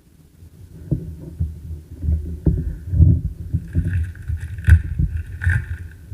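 Handling noise as a pack of trading cards is sorted through by hand: irregular dull knocks and bumps, with a brighter scraping of cards sliding over one another in the second half.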